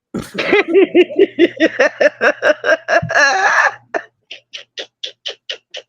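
A person laughing hard in rapid, rhythmic bursts of about five a second, trailing off into fainter, breathy wheezing pulses.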